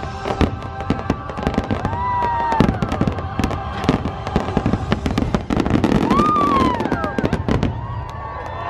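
Fireworks going off in quick succession: many sharp bangs and crackles, with show music underneath.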